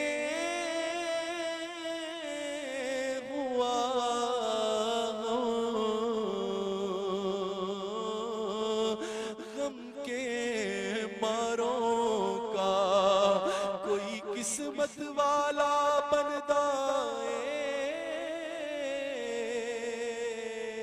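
Unaccompanied male voice singing a naat, drawn out in a long, wavering melodic passage with no clear words.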